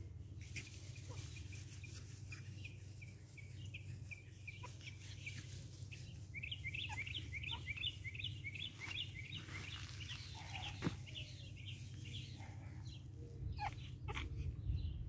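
A bird calling in the background: a quick run of short, repeated high notes, strongest about halfway through, over a low steady rumble.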